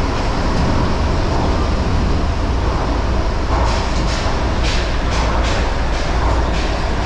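Shonan Monorail suspended car running through a tunnel: a steady rumble with a hissing noise, and a quick run of short sharp clicks about halfway through.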